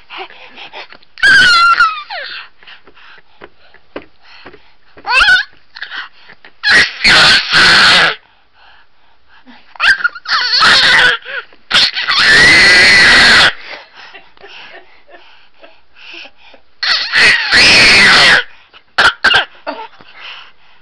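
Baby shrieking with excitement: about seven loud, high-pitched squeals, each around a second or less long, some sliding up and down in pitch, with quieter breathy noises between them.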